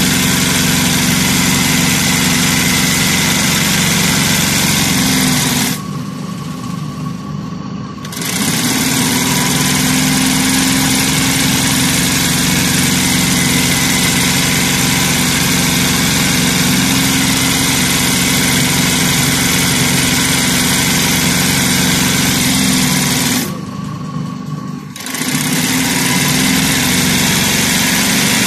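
Electric sewing machine stitching steadily through fabric at speed. It stops stitching twice for about two seconds, about six seconds in and again near the end, and the sound drops but does not stop.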